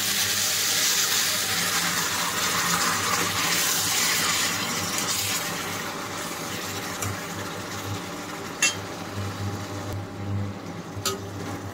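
Boiled chana dal and its cooking water poured into a hot pan of fried jackfruit and potato, giving a loud hiss at the start that fades over the next several seconds. Near the end come a couple of clicks of a steel spatula against the pan.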